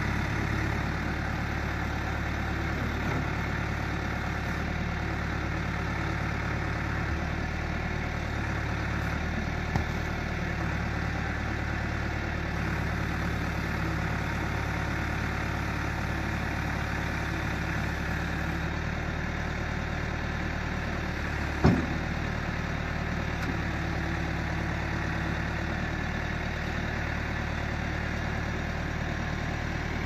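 Diesel engine of a 2002 Caterpillar 420D backhoe loader running steadily, with one sharp clunk about two-thirds of the way through.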